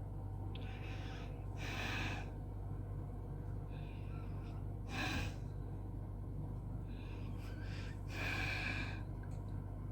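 Short hissing puffs about every three seconds, each led by a fainter one, over a steady low hum.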